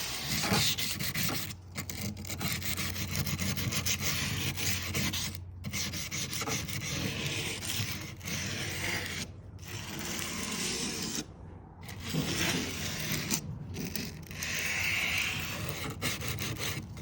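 Fine-grit aluminium-oxide plumber's emery cloth rubbing along the rough stainless-steel edge of a Tesla Cybertruck body panel, a scratchy sanding sound in long swipes broken by several short pauses. The rasp is the rough factory edge being smoothed down.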